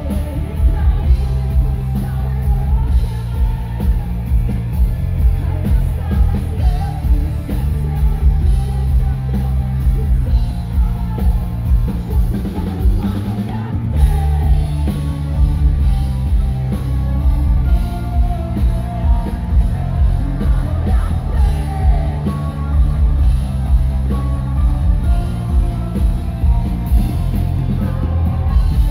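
Live rock band playing loud: a woman singing hard into a microphone over electric guitar, bass guitar and a drum kit, with a heavy bass and a steady beat.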